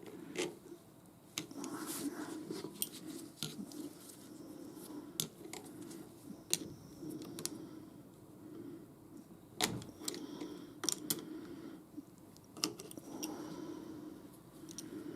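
Irregular light metallic clicks and clinks from hand tools and the steel parts of a lathe tool slide being handled and adjusted, with a sharper knock about ten seconds in. A faint steady hum runs underneath.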